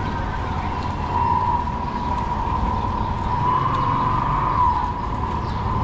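City street traffic rumbling, with a steady whining tone running through it that wavers briefly in the middle.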